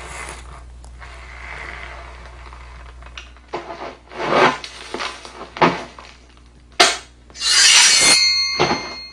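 A run of separate sound-effect noises: several short scraping or rubbing strokes, a sharp knock, then a louder, longer scrape that leaves a brief metallic-sounding ring.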